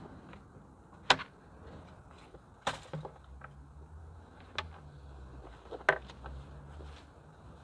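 A canvas haversack being opened and unpacked, with gear set down on a wooden table top: four sharp clicks and knocks about a second and a half apart, among soft rustling of the canvas, over a low steady rumble.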